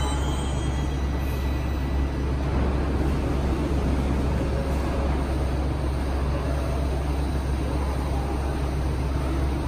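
Bucharest Metro train running in a station, a steady rumble.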